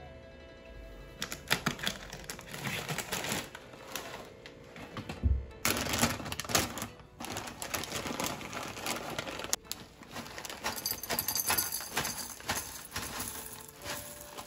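Plastic granola bag handled and rustled open, then, near the end, Frugra granola clusters pouring into a bowl in a dense clicking rattle.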